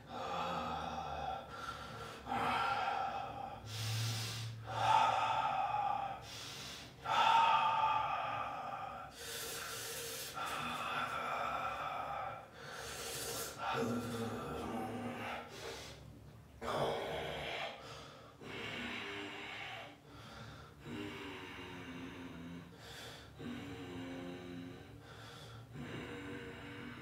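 A man sitting in freezing-cold bath water, gasping and breathing hard in uneven breaths, several carrying a moan. The loudest breaths come in the first third, and they grow weaker toward the end.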